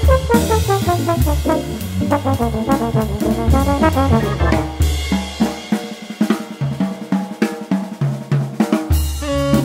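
Jazz organ group playing: trombone and tenor saxophone carry a fast melodic line over drum kit and organ bass notes. The bass drops out for a few seconds past the middle, then comes back near the end.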